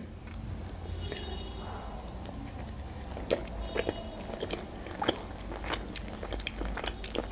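A person chewing a mouthful of sushi roll close to the microphone, with small irregular mouth clicks and smacks throughout.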